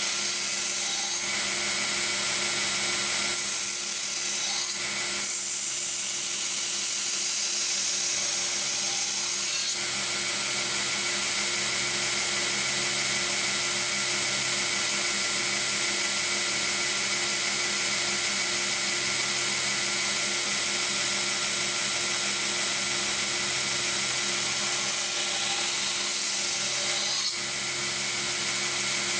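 Belt grinder running steadily, its motor and sanding belt giving a constant hum with a high whine.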